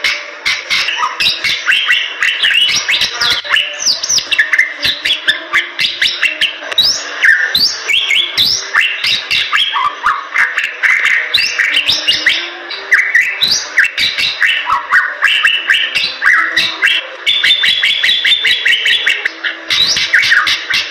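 Bali myna singing vigorously: a fast, nearly unbroken stream of chirps, rising and falling whistles and sharp clicks.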